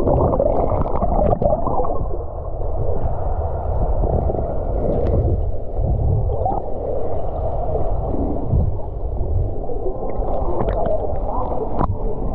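Muffled underwater rumbling and gurgling of pool water, heard through a submerged camera, with the high end cut off.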